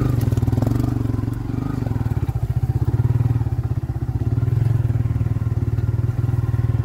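Small motorcycle engine running steadily with a fast, even exhaust beat while being ridden, easing off briefly about a second in and again about four seconds in.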